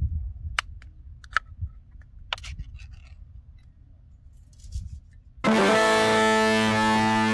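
A few sharp metallic clicks as a wire-mesh crawfish trap is handled and its halves clipped together, over a low rumble. About two-thirds of the way through, louder background music comes in with a long held chord.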